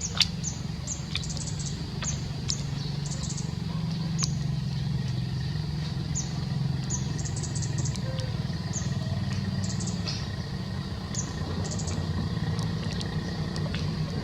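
Short, high bird chirps repeating every half second to a second over a steady low motor rumble, with a few sharp clicks.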